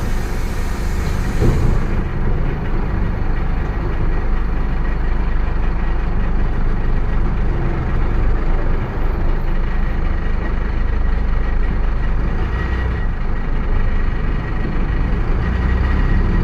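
Mercedes-Benz OF 1721 BlueTec 5 bus running with a steady low diesel drone and its differential growling. A hiss dies away about two seconds in.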